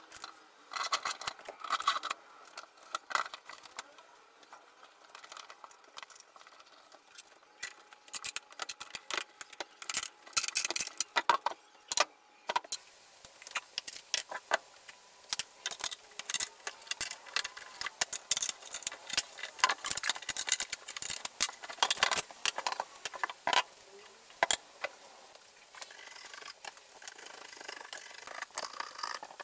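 Irregular metal clinks and rattles of threaded-rod clamps and their nuts being handled on a glued-up wooden board. Near the end, a chisel scrapes dried glue off the wood.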